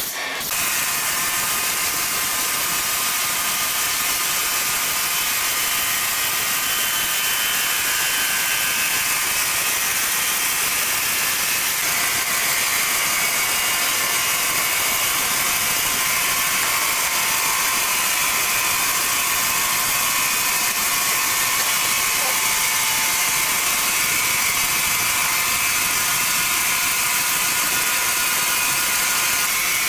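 Sawmill machinery running steadily: a dense mechanical noise with a faint saw whine over it.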